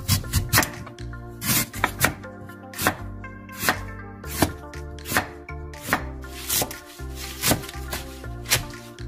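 Kitchen knife chopping through Korean radish (mu) on a cutting board, then through the radish greens near the end: crisp chops about three every two seconds, over background music.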